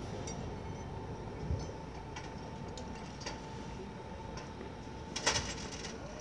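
Steady background noise of an outdoor construction site, with scattered faint clicks and a short burst of rattling clatter about five seconds in.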